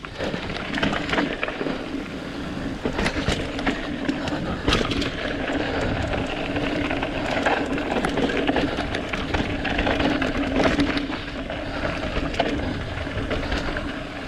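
Mountain bike riding down a dirt trail: tyres rolling over dirt and rocks with many small rattles and knocks from the bike, over a steady low hum.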